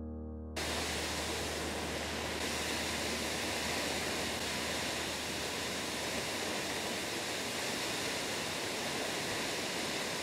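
Steady rushing of a 120-foot waterfall pouring onto rock. Background music cuts off about half a second in.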